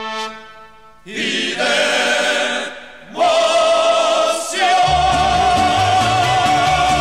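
Mariachi-style song music with sustained chords broken by short dips about a second in and near three seconds. Then a long held note with vibrato, over a steady bass beat that comes in about five seconds in.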